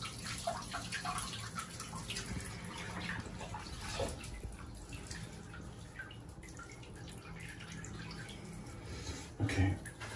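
Shallow bathwater splashing and dripping in a bathtub as a cat is washed by hand, in many small scattered splashes, with a brief louder sound near the end.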